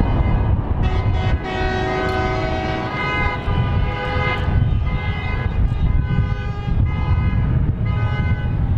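Several horns sounding long, overlapping steady tones over a constant low rumble.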